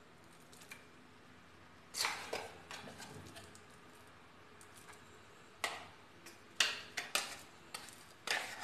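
Ground moong dal being added from a bowl into a pan of ghee: a couple of short taps and scrapes of the utensils about two seconds in, then a run of brief taps and scrapes near the end, with quiet stretches between.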